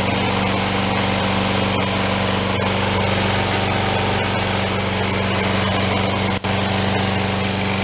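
Sears Craftsman 22-inch Series 650 lawn mower's small four-stroke engine running steadily, just brought back to life on year-old gas; it sounds pretty darn good. The sound cuts out for an instant about six seconds in.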